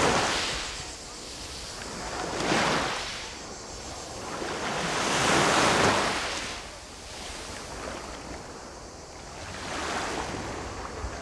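Small waves breaking and washing up a coarse-sand and pebble shore, four surges a few seconds apart with the longest and loudest about halfway through. Low wind rumble on the microphone underneath.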